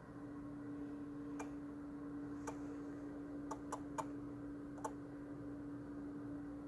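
Irregular, unevenly spaced clicks, about six of them, from the engine bay of a Kia Sportage QL whose engine has been off for over ten minutes, over a steady low hum. The owner finds these clicks abnormal.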